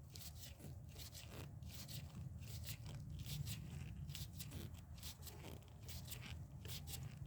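Faint, irregular scrapes and ticks of hand and tool work on the engine as the new head temperature sensor is turned in and snugged up, over a low steady hum.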